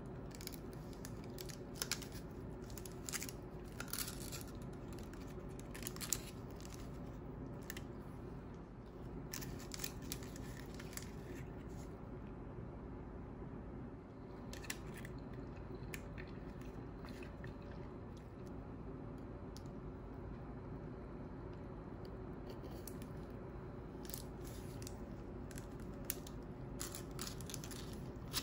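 A knife cracking through the hard chocolate coating of Oreo cream cheese balls and into the soft filling: spells of small crunching, crackling clicks over a steady low hum.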